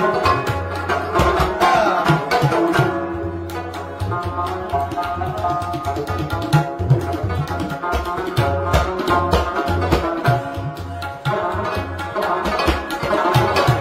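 Instrumental music with a steady hand-drum rhythm under plucked strings and a held melody.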